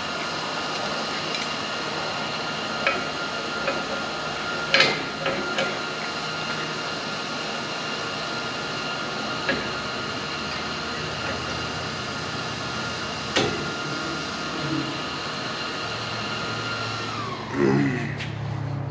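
Steady whine of a small electric motor running, winding down in pitch near the end, with a few sharp metal clinks as a steel piece is fitted and clamped onto a steel post.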